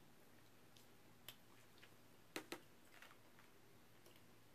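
Quiet eating sounds: faint clicks and crackles as crispy fried chicken is pulled apart by hand and chewed, with two sharper clicks in quick succession about halfway through.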